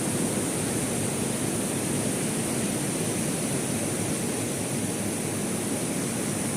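Heavy rain pouring down, a steady, even hiss with no thunder.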